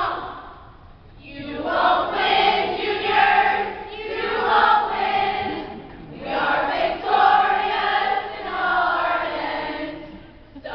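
A group of girls singing a cheer together in unison, in phrases. The singing starts about a second in and has a short break near the middle.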